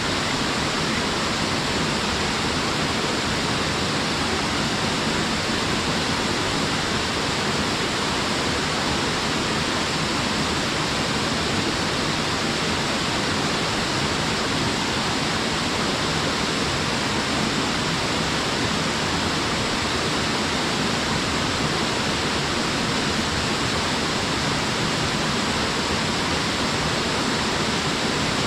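Small waterfall pouring steadily into its pool: an even, unbroken rush of falling water.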